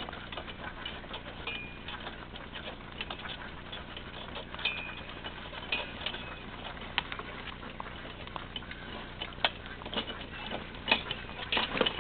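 Pony pulling a two-wheeled cart over gravel: hooves and wheels make a steady run of irregular crunches and clicks, with a few sharper clicks near the end.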